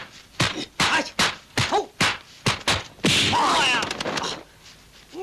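A rapid run of dubbed kung fu punch and kick impact effects, two or three sharp whacks a second, mixed with fighters' grunts. About three seconds in comes a loud, noisy burst lasting about a second.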